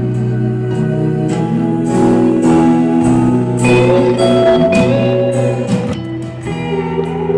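Live band music: an instrumental passage with a guitar melody over sustained chords, no singing.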